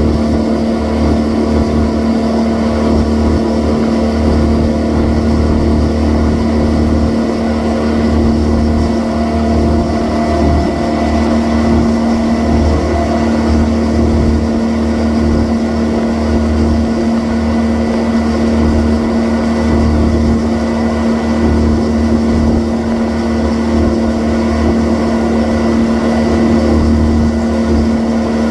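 2000 Sanger DX II ski boat's engine running at a steady, unchanging pitch while towing a slalom skier at 43.5 mph.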